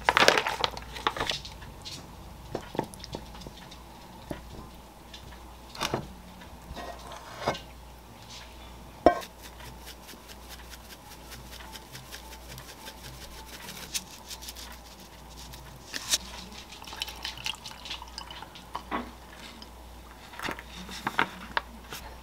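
Kitchen handling sounds: liquid poured into a glass, and scattered clinks and knocks of dishes on a counter. One sharp knock comes about nine seconds in, followed by a run of quick light ticks lasting several seconds.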